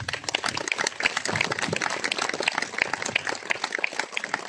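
Audience applauding: many hands clapping at once, starting right away and going on steadily, with some single claps standing out louder.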